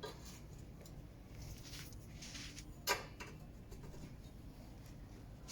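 Quiet room sound with a few faint rustles and a single sharp click about three seconds in.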